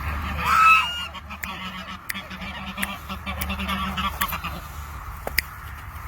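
A goose honks loudly about half a second in. Softer, shorter goose calls follow over the next couple of seconds.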